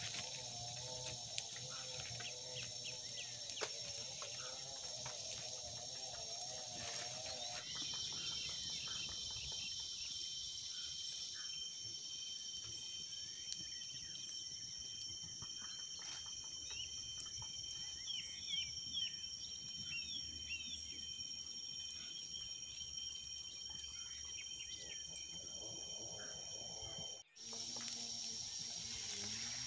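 Steady high-pitched insect chorus of crickets or cicadas droning, with a few short chirps a little past the middle.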